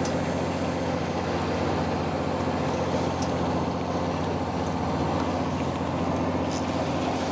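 Fishing boat's engine running steadily: a continuous low hum.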